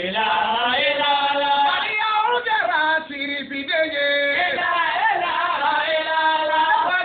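A voice chanting in long, held notes that waver and glide between pitches, with a short break about three seconds in.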